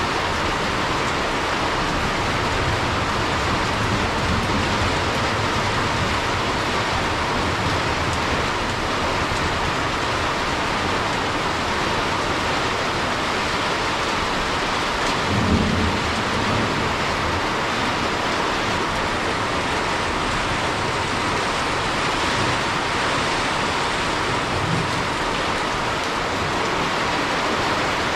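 Steady rain falling, an even hiss with no let-up, with a brief low rumble about halfway through.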